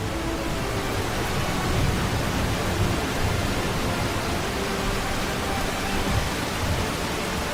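Steady, dense noise of pouring water in a heavy rainstorm.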